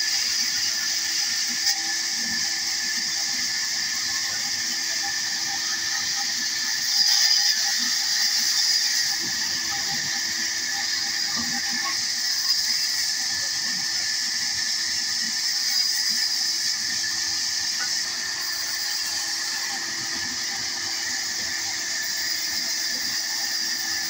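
Band saw running and cutting through wooden bat blanks: a steady high-pitched hiss and whine with a low hum beneath. It grows louder for a couple of seconds about seven seconds in.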